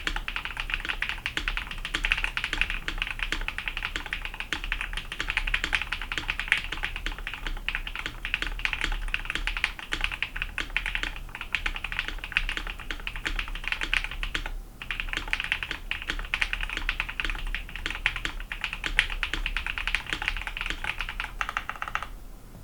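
Typing sound test on a KBD67 Lite R2 mechanical keyboard with Kinetic Labs Husky linear switches and ePBT keycaps: fast, continuous keystrokes. There is a brief pause about two-thirds of the way through, and the typing stops just before the end.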